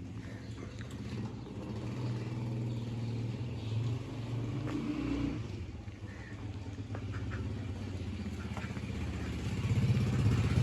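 An engine running steadily with an even low throb, growing louder near the end.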